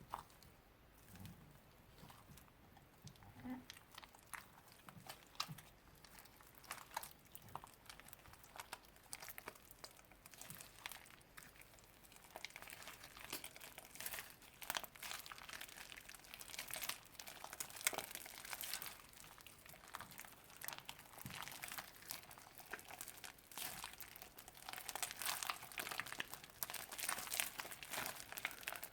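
Slime-making handling sounds: crinkling and crunching, a scattered run of small clicks and crackles that grows denser and louder about halfway through.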